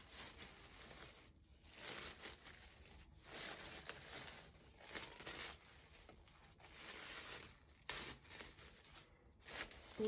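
Thin plastic bag crinkling and rustling as it is wrapped and tucked around a bowl by hand, in irregular bouts with short pauses.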